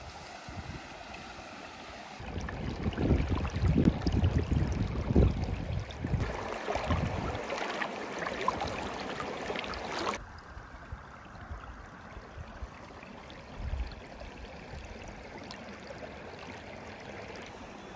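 Muddy canal water rushing out of a culvert pipe and spilling over a fish-trap barrier, a steady rushing noise. It is louder and rougher with low rumbles from about two seconds in, then drops suddenly about ten seconds in and carries on quieter.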